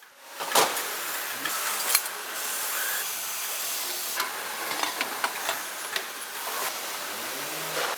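Factory workshop noise: a steady hiss with scattered sharp clicks and taps.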